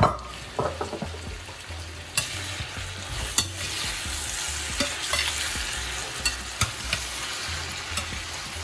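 Vegetables and small fish sizzling in a stainless-steel pan while a metal spoon stirs them, tapping and scraping against the pan every so often. A sharp knock right at the start is the loudest sound.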